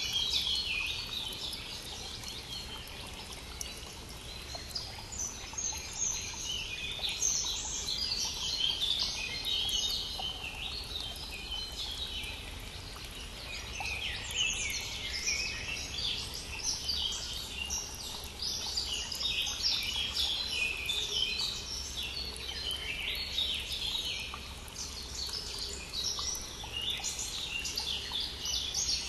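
Many songbirds singing and chirping continuously, with densely overlapping trills and twitters, over the steady rushing of a small brook.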